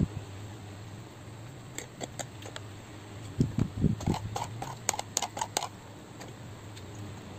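A metal spoon and fork clink and scrape on a serving tray as fried chicken is cut, giving a run of light clicks and a few low knocks between about two and six seconds in. A steady low hum sounds underneath.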